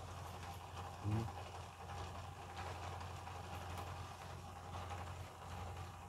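Faint clicks and rustles of hands handling a laptop's loose DC power-jack cable and casing, over a steady low hum.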